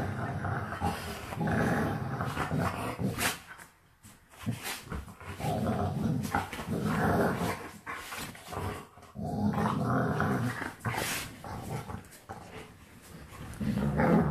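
An American Staffordshire Terrier and a wolf-type dog play-fighting, with rough play growling that comes in about five bouts of a second or two each and short pauses between them.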